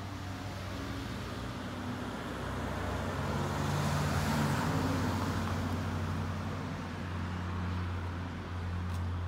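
Road traffic beside a city street: one car passes, its noise swelling to a peak around the middle and fading again, over a steady low hum.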